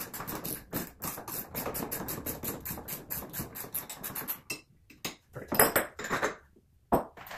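Rapid small metallic clicking as a nut is worked onto a bolt of a steel barn-door roller bracket, followed about five seconds in by a few louder knocks and clatters of hardware on the workbench.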